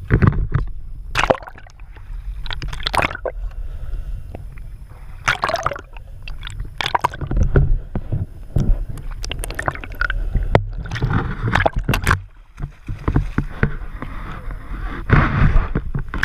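Boat engine running with water sloshing and splashing against the hull in irregular bursts, over a steady low rumble.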